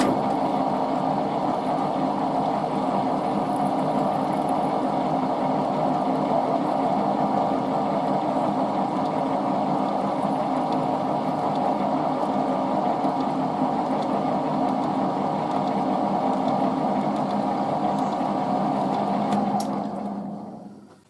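Metal lathe running while a twist drill in the tailstock chuck bores into the end of the spinning metal workpiece: a steady machine hum that starts suddenly and dies away near the end.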